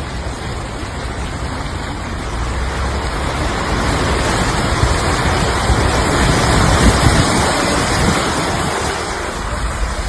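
Tyre hiss and traffic noise on a wet street. It swells to a peak about two-thirds of the way through as a vehicle passes, then eases.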